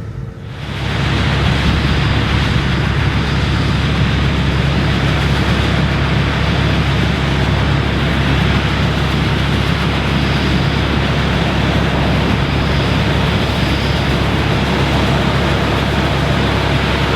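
John Deere 9750 STS combine harvesting corn: a steady, loud mix of engine hum and threshing noise that comes in suddenly about half a second in.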